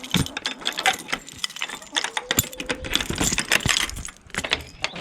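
Rapid rattling and clattering knocks at a chicken coop as it is being opened.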